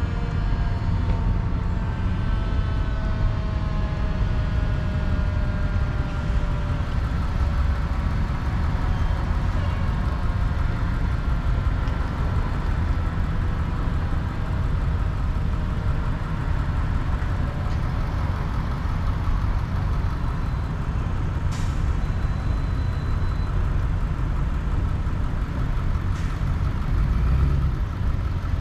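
Steady low rumble of road traffic and vehicle engines. Through the first half a faint tone with several overtones slides slowly down in pitch. A short click comes about two-thirds of the way through.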